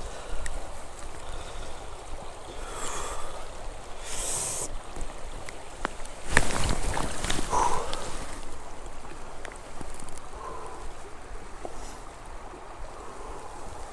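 Water of a shallow spring creek running steadily over stones. There are short splashes a few seconds in, and a louder stretch of splashing for about two seconds around the middle.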